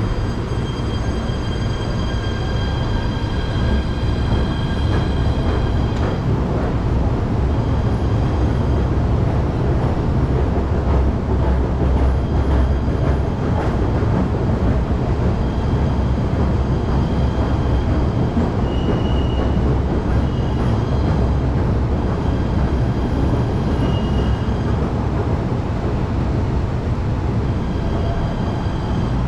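PATH PA-5 subway train pulling out of an underground station: a steady low rumble of the cars rolling along the rails, with a high whine that comes and goes.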